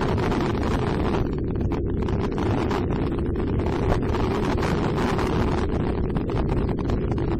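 Wind noise on the microphone over the steady running of a motorcycle riding along at town speed.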